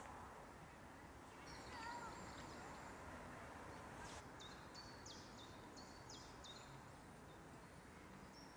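Faint songbird calls over a low outdoor hush: a few chirps about two seconds in, then a quick run of about six short high notes in the middle.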